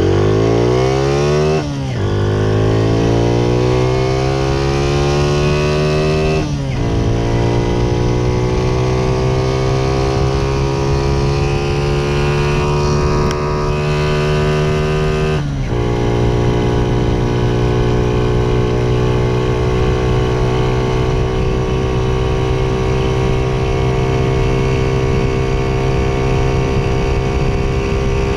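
Honda Cub's single-cylinder four-stroke engine, fitted with a 56 mm bore and taller 17/36 gearing, accelerating hard from nearly a standstill. The pitch rises through each gear and drops at three gear changes, near the start, about six seconds in and about fifteen seconds in, then holds high and steady at full throttle near top speed, with the new clutch not slipping.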